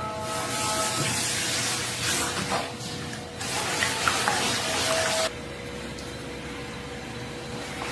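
Water running or pouring with a rushing hiss in two spells, a brief lull a little past three seconds, then stopping abruptly a little after five seconds.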